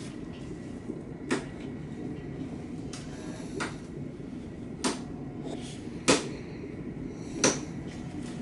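Six sharp clicks and knocks at uneven intervals over a steady low room hum: hospital bed and equipment being handled at the foot of the bed.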